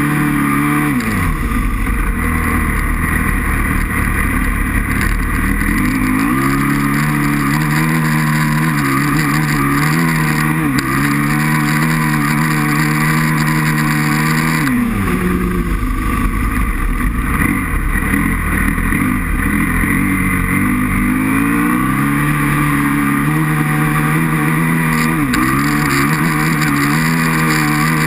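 Aprilia RXV 550 V-twin motorcycle engine running hard. Its pitch falls sharply as the throttle closes three times, about a second in, halfway through and near the end, and each time climbs back to a steady high note.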